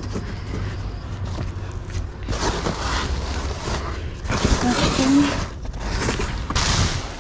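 Cardboard and plastic bags rustling and crinkling as gloved hands dig through a dumpster, in a few noisy bursts about two, four and a half and six and a half seconds in, over a steady low rumble.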